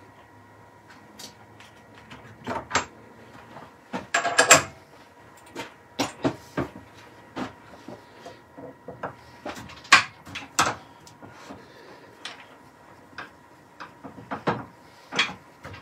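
Irregular metal and wood clicks and knocks as a drive centre is fitted into a stopped wood lathe's headstock and a square wooden blank is set between centres, with the loudest clatter about four seconds in.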